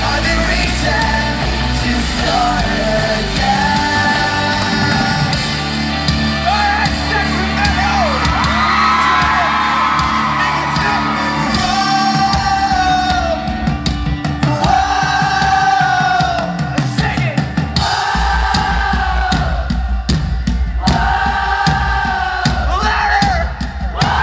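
Live rock band playing, heard from the audience: drums, guitars and bass under sung vocals, with the crowd yelling and singing along. The deep bass thins out for a few seconds past the middle, leaving the voices and drum hits, then comes back in heavily about three quarters of the way through.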